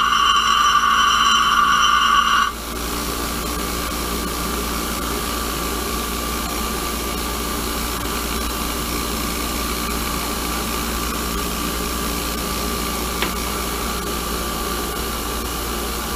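Bench grinder with a Harbor Freight Warrior wheel grinding a steel lathe tool bit: a loud, high-pitched grinding whine for the first two and a half seconds. The bit is then lifted off and the grinder runs on free with a steady hum.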